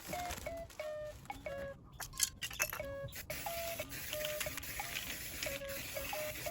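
Background music of short, bell-like plucked notes in a light repeating melody, with a hiss underneath for a few seconds in the middle.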